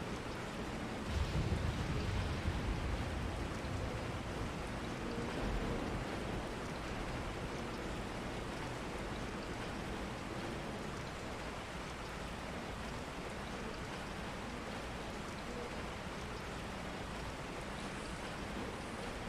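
Steady rain falling, with a low rumble swelling briefly a second or two in.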